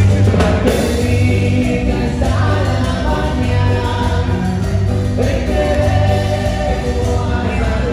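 Loud music with several voices singing over a heavy bass line.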